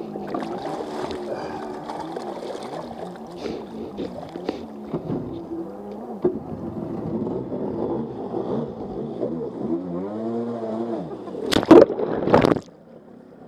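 Stand-up jet ski engine running, its pitch rising and falling as the throttle is worked, with one more rev up and down near the end. Then two loud splashes of water hit the camera as it dips under, and the sound goes dull and quiet.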